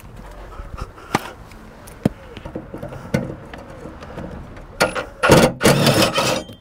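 Cordless impact driver hammering on a lawn tractor's mower blade bolt in several short bursts near the end, undoing the bolt to take the blade off. Before that, a few light clicks and knocks as the socket is fitted onto the bolt.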